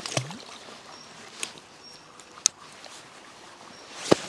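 A few sharp clicks and knocks from fishing tackle being handled, the loudest near the end, with faint short high chirps of birds.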